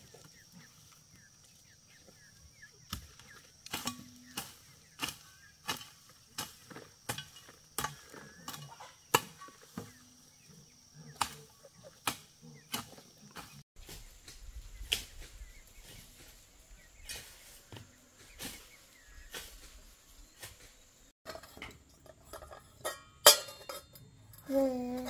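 Repeated sharp knocks of a hand tool striking, fairly even at about one or two a second, then more irregular after a pause about halfway, with a loud cluster of strikes near the end.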